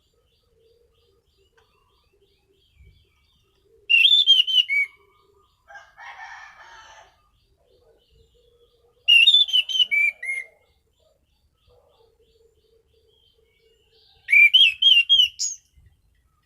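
Orange-banded thrush (anis cendana) singing three short, loud phrases of quick, sweeping whistled notes, roughly five seconds apart. A softer rustling sound comes between the first two phrases.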